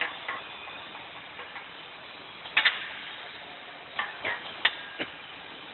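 Automatic PVC car mat dispensing machine at work: sharp clicks and clacks, one about two and a half seconds in and a cluster of four near the end, over a steady hiss of machine noise.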